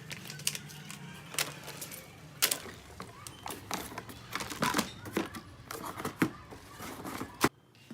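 Irregular clicks and light clattering of small hard objects being handled, cutting off suddenly near the end.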